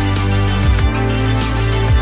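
Background music: an electronic track with a steady kick-drum beat and sustained synth tones.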